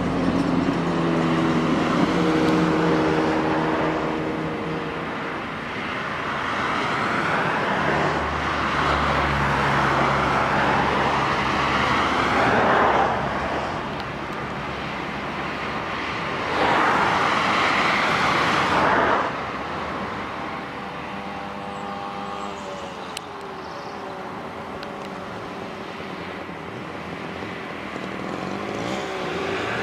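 Old Eastern Bloc cars driving past one after another, each engine and its tyre noise swelling and fading as it goes by; the loudest passes come about a third of the way in and just after halfway. In the last third a small moped engine buzzes past with a wavering pitch.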